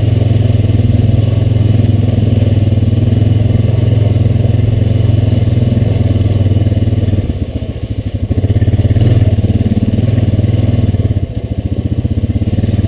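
Honda Rancher 420 ATV's single-cylinder engine running steadily under way. The engine note drops briefly twice, about seven seconds in and again near the end, as the throttle eases off.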